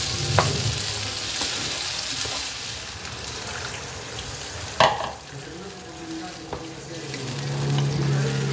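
Food sizzling in a frying pan as it is stirred, with a sharp knock of the utensil against the pan about five seconds in; the sizzle is quieter after the knock.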